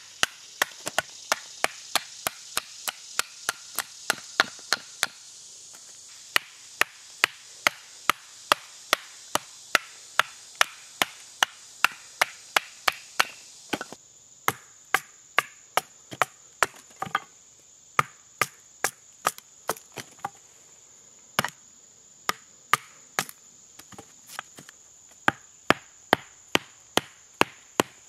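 Batoning: a wooden baton repeatedly knocks the spine of a 1075 carbon-steel bushcraft knife, driving the blade through pignut hickory to split it. Sharp blows come about two to three a second, less evenly with short pauses in the second half.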